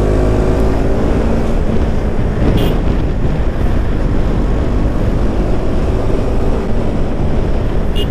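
Bajaj Pulsar NS200's single-cylinder engine running under way, its note easing down over the first couple of seconds, with heavy wind rush on the microphone.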